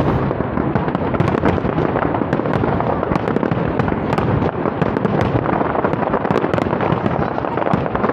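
Aerial display fireworks in a continuous barrage: many shells bursting in quick succession, sharp bangs over an unbroken din with no pause.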